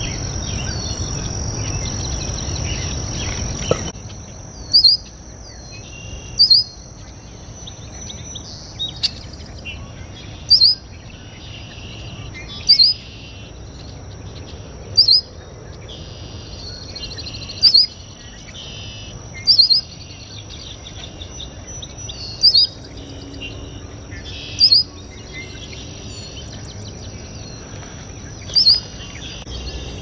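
Male red-winged blackbird giving a short rising call over and over, about every two to four seconds, against a thin steady high whine. For the first four seconds a steady rushing noise covers everything, then stops abruptly.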